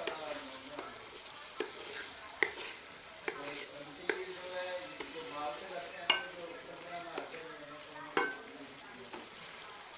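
Chicken and chickpea curry being stirred in a pot with a spoon, the spoon knocking against the pot every second or two over a low sizzle of oil.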